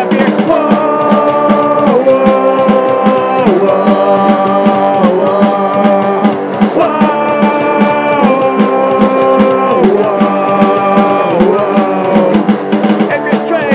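Rock band playing an instrumental break: a lead line of long held notes that slide down between phrases, over a fast, steady drum and bass pulse.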